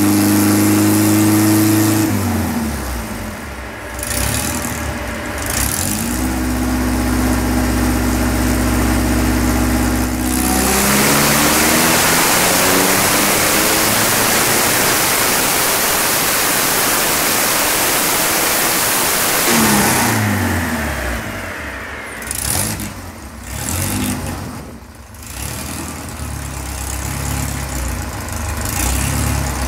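Supercharged air-cooled VW 1600 flat-four (AMR500 supercharger) running on a chassis dyno. It is held at steady revs, with a short lull about two seconds in. From about ten seconds in comes a loud full-throttle pull lasting some ten seconds, then the revs fall away and it runs unevenly at low revs, dipping a few times near the end.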